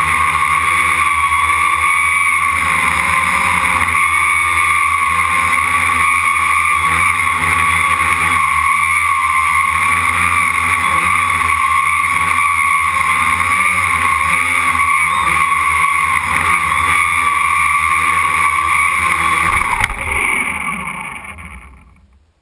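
Quadcopter's electric motors and propellers running with a steady, slightly wavering whine in flight. About 20 seconds in it drops in level and falls in pitch as the rotors spin down after landing, fading out near the end.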